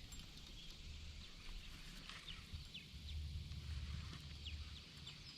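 Quiet outdoor pond ambience: a low rumble that comes and goes, with faint short falling chirps repeating about twice a second from about two seconds in.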